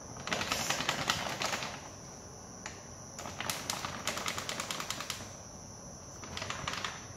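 Flour bag crinkling and rustling in three bouts as it is tipped and shaken to pour flour into a glass bowl.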